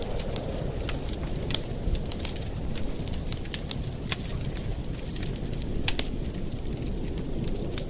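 Campfire burning, with a steady low rush and scattered sharp crackles and pops from the burning wood; the loudest pop comes about six seconds in.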